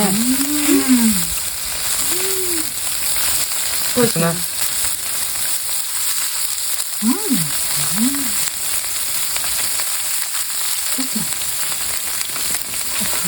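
Lamb ribs frying on a sottukkeong cauldron-lid griddle: a steady sizzling hiss. A few short voice sounds come through over it.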